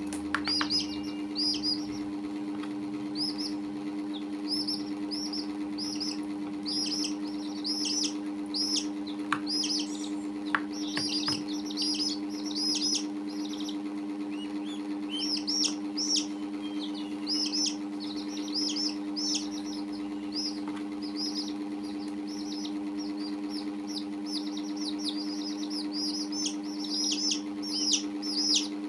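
Young chicks peeping: many short, high, downward-sliding peeps in quick runs throughout, over a steady low hum.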